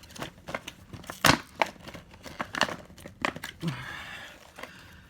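Stiff plastic packaging being crinkled, bent and pried open by hand, giving a series of sharp cracks and crackles, the loudest about a second in.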